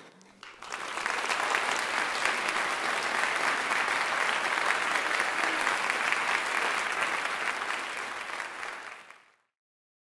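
Audience applauding: many hands clapping at once, swelling within the first second, holding steady, then fading out near the end.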